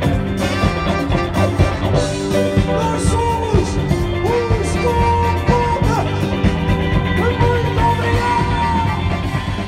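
Rock-and-roll music with a steady drum beat and long, sliding sung notes.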